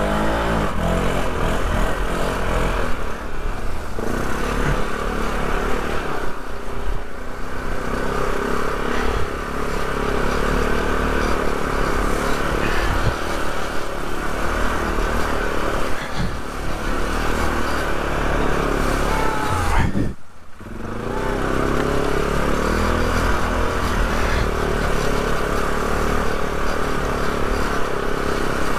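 Polaris quad's engine running under load in two-wheel drive. The engine sound drops away briefly about two-thirds of the way through, then picks up again.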